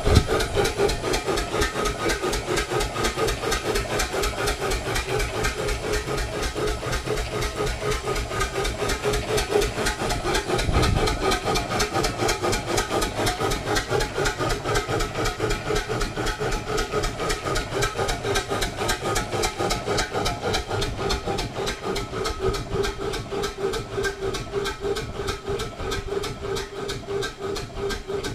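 Restored vertical steam engine running on compressed air: a fast, even chuffing of about four exhaust beats a second over a steady hiss, getting a little quieter toward the end.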